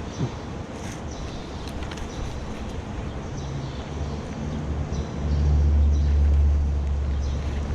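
A low engine rumble that swells louder about five seconds in and eases near the end.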